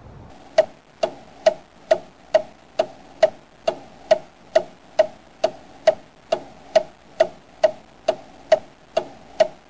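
Ticking clock sound effect: an even tick-tock about twice a second, starting about half a second in.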